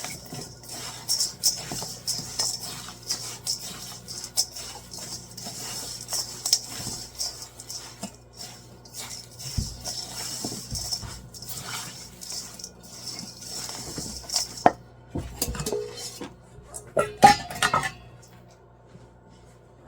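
A spoon stirring dry oats, peanuts and dried cranberries in a bowl, scraping and clinking against the bowl, with a few louder clatters near the end before it stops.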